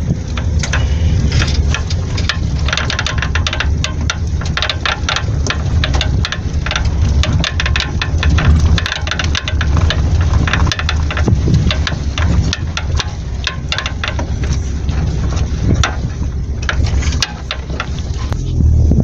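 Rapid, irregular knocking and clicking over a steady low rumble, typical of the blown rubber bump stop on a Chevrolet Corsa's rear shock absorber knocking in its play.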